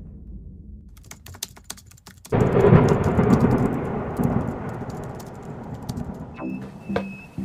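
Intro sound effects for an animated logo: a rapid crackle of sharp clicks for about a second, then a sudden loud burst of low rumbling noise that slowly dies away. Near the end, short pitched music notes and a thin steady high tone come in.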